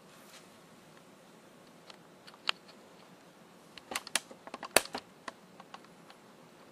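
Handling noise: scattered light clicks and taps, the sharpest about three-quarters of the way through, with a cluster of them around it, over a faint steady background hiss.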